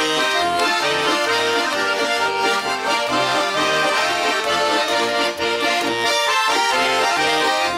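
Accordion playing the instrumental introduction to a Russian folk-style song: a melody over a recurring bass-and-chord accompaniment.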